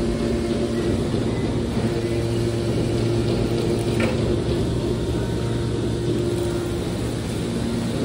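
Hydraulic scrap metal baler's power unit running with a steady hum while its ejection ram pushes out a compressed bale, with a brief metallic click about four seconds in.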